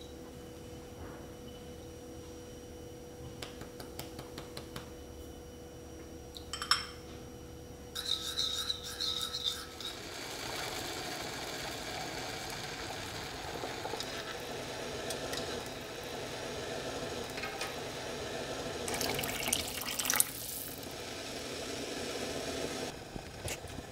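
Water in an enamelled cast-iron pot hissing and bubbling as it heats, with dumplings dropped in by hand. Near the end a brief louder rush of water, as cold water is poured into the pot. It opens with a few light clinks of a metal measuring spoon against a ceramic bowl.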